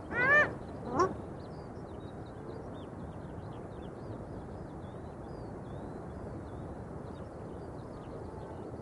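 Two short pitched animal calls, one about a quarter-second in and another about a second in, then a steady outdoor hiss with faint small-bird chirps above it.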